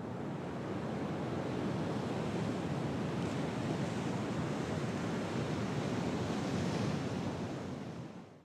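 A steady rushing noise, even and without any tone, that fades out near the end.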